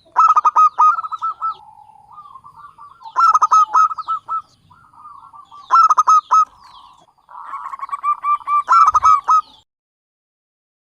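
Zebra dove (Javanese perkutut) cooing in four bursts of rapid, staccato notes.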